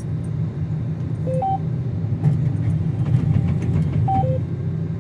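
Combine harvester running while cutting soybeans, a steady low drone. Two short two-note electronic beeps sound over it, about a second in and about four seconds in.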